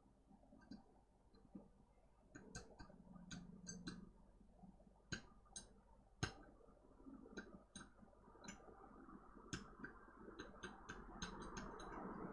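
Small metal hand tools, such as tweezers, tapping and clicking irregularly on a laptop mainboard during repair, a dozen or so light clicks. A faint hiss grows slowly louder near the end.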